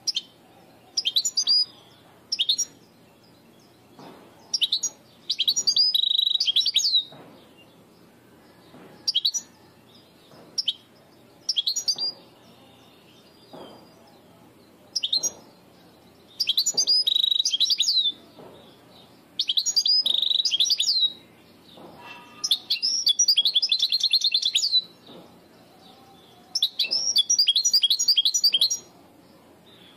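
Caged European goldfinch singing in phrases of fast twittering and buzzy trills with short pauses between them. It is a Levantine (Shami) style song, which the breeder presents as clean and free of faults.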